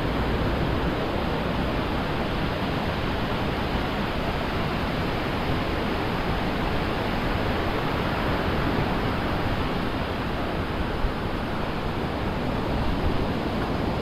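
Steady rush of surf: small waves breaking and washing up a sandy beach.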